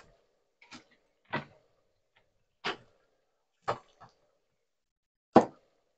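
About six light knocks and clicks at irregular intervals, the loudest near the end, as broccolini pieces are put into a steaming pot.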